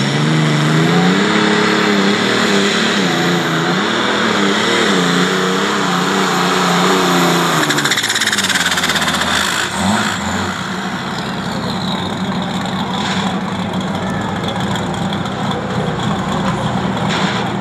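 International super stock pulling tractor's engine running hard at full power while it drags the weight-transfer sled, its pitch wavering up and down. About eight seconds in it comes off the throttle and settles to a lower, steadier run as the pull ends.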